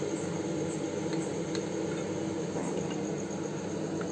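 Hot oil sizzling steadily as khasta pastries deep-fry in a kadhai.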